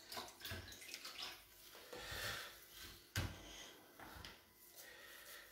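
Faint wet squishing and scraping of hands scooping and pressing sticky rice mixture for arancine, with a sharper knock about three seconds in.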